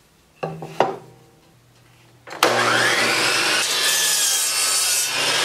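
Two knocks, then about two seconds in the miter saw's motor starts with a sudden rising whine. The spinning blade then cuts through a wooden board for about a second and a half, the motor still running at the end.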